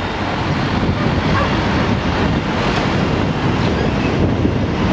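Wind buffeting the microphone: a steady, rough low rumble with hiss above it.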